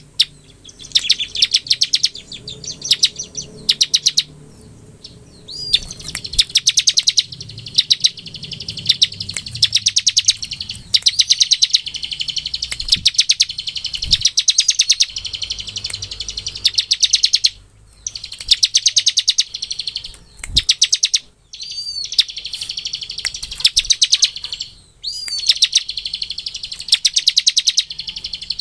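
Bar-winged prinia (ciblek) singing its fast, drilling 'ngebren' song: rapid trilled phrases of about one to two seconds each, repeated with short breaks.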